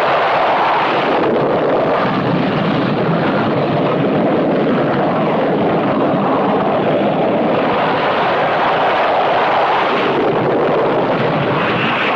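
Jet aircraft engines running on a carrier flight deck during catapult launches, a steady loud noise with no break.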